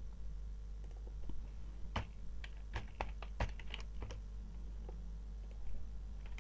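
Typing on a computer keyboard: a quick run of keystrokes about two seconds in, then a few scattered key clicks, over a faint steady low hum.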